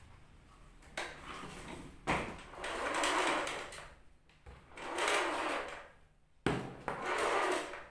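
Power cord being pulled out of a canister vacuum cleaner's retractable cord reel in four pulls, each about a second long and starting sharply.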